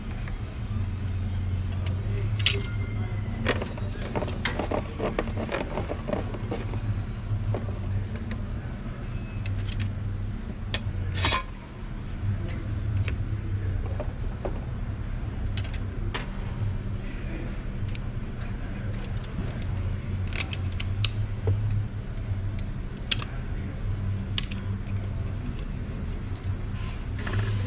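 Steel and friction clutch plates of a Ford 10R80 transmission's CDF drum clinking and scraping as they are handled and stacked onto the drum. Scattered sharp clicks run through the sound, with one louder clack about eleven seconds in, over a steady low hum.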